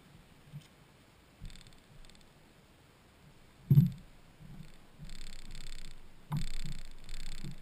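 A person moving about on a fishing boat's deck: one heavy thump a little under four seconds in, then two stretches of rustling and shuffling.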